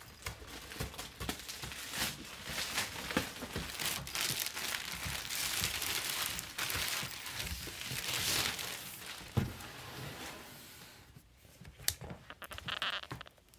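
Packaging being handled and opened: crinkling, rustling and tearing with many small clicks, dying down over the last few seconds.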